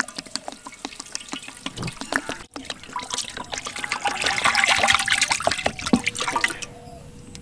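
Cooking oil poured in a stream from a plastic jug into a large, hot, wide metal frying pan, splashing and trickling onto the metal. There is a brief break about two and a half seconds in, and the pour is heaviest in the middle. This is the frying oil going in before the jackfruit is deep-fried.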